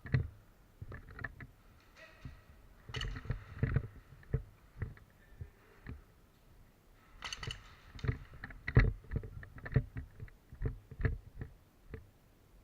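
Irregular thumps and knocks, some sharp and loud, mixed with two stretches of rustling.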